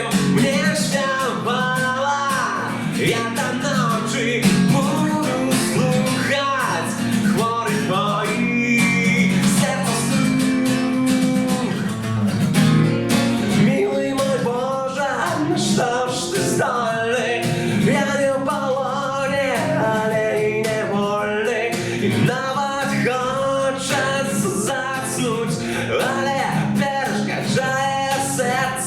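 A song: singing over guitar accompaniment.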